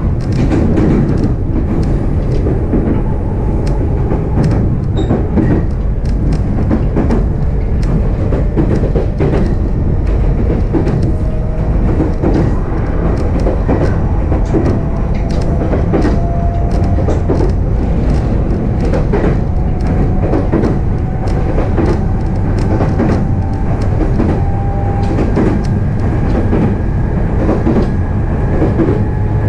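Running noise inside a JR East E531 series electric train, recorded in a motor car: a steady low rumble with frequent clicks of the wheels over rail joints. A faint whine slowly rises in pitch through the middle of the stretch.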